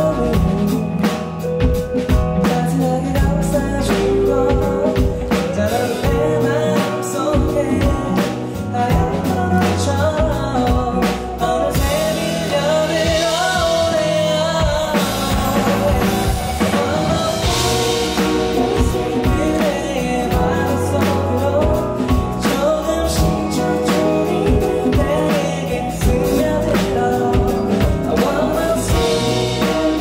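A male singer singing a Korean song live over a band with electric guitar and drums.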